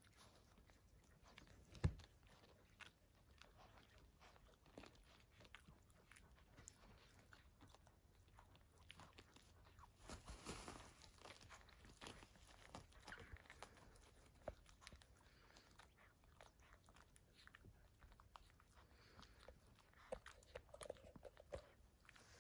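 Newborn puppies suckling at their mother: faint, wet smacking and sucking clicks throughout, with one louder knock about two seconds in.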